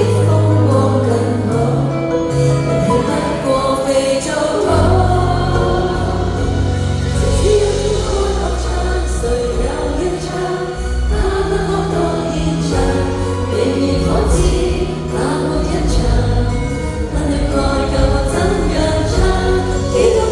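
Live pop concert in an arena: a woman singing into a microphone over the band, with heavy sustained bass coming in about five seconds in.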